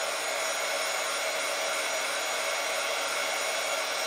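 Handheld electric craft dryer running steadily, a loud rush of blown air with a constant motor whine, drying wet paint on fabric.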